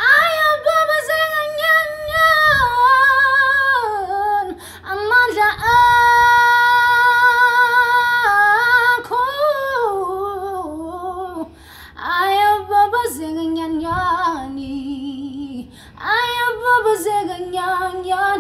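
A young woman singing solo without words, in long runs and held notes with a wide vibrato. One long note is held from about six to eight seconds in, and short breaths separate the phrases.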